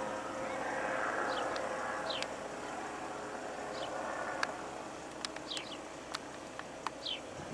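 Gyroplane's engine and pusher propeller droning overhead, fading as it flies away. Short falling bird chirps repeat over it, and a few sharp clicks come in the second half.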